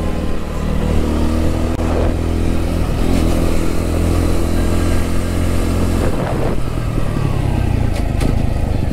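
Motorcycle engine running under the rider as it rides, its pitch rising and falling with the throttle, then dropping to a lower steady pitch about six seconds in. Wind noise on the microphone rides along underneath.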